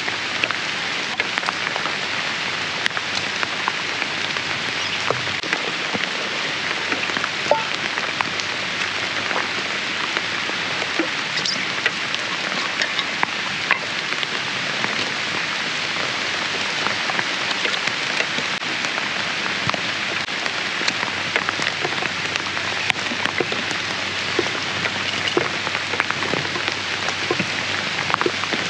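Heavy rain falling steadily, with many individual drops ticking sharply on nearby surfaces.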